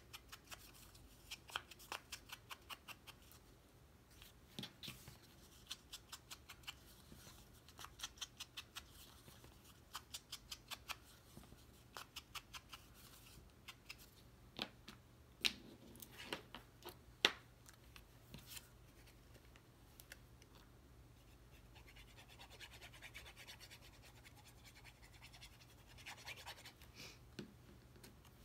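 Scissors snipping paper in short runs of quick clicks, followed by a few louder single clicks and faint paper rustling near the end.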